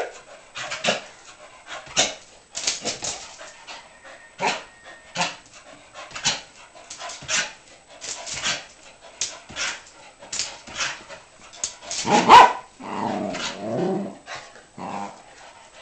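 Dog barking and yipping in short sharp sounds, about one a second, with a louder, fuller bark about twelve seconds in, followed by lower sounds for about two seconds.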